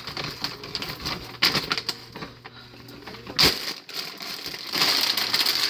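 Rummaging through packaging: crinkly rustling and light clicks and clatters, with one sharp knock about three and a half seconds in.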